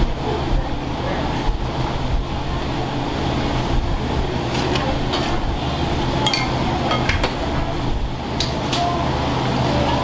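Busy udon shop ambience: a steady low hum under a murmur of voices, with scattered clinks of dishes and utensils, mostly in the second half.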